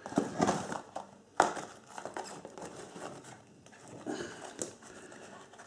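Hands rummaging through a cardboard box of boxed fireworks: small cardboard packages rustling and knocking against each other and the box, with a sharp knock about a second and a half in.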